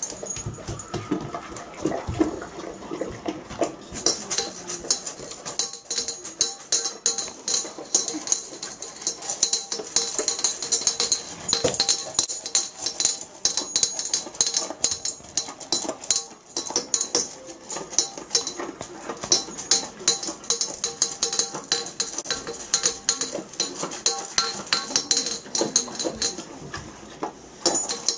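A Bernese mountain dog eating dry kibble from a stainless steel bowl, with clinks of kibble against the metal. Background music with a jingling tambourine rhythm comes in about four seconds in.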